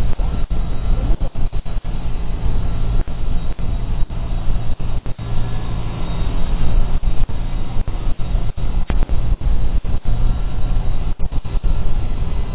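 Watercraft engine running steadily at speed, with wind buffeting the microphone in frequent short dropouts.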